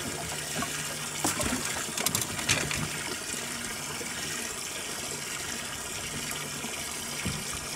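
Boat livewell pump running, water pouring steadily into the well over a low steady hum, with a few light clicks and knocks between about one and two and a half seconds in.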